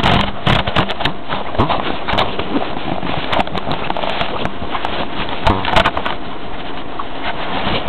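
Camera handling noise: a hand rubbing and knocking against the microphone, heard as a loud crackling rustle with many sharp clicks.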